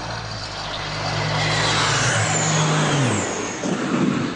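Low-flying plane's engines droning steadily, with a high whine falling in pitch as it passes about two to three seconds in. It then crashes into the ground with a loud jumbled impact near the end.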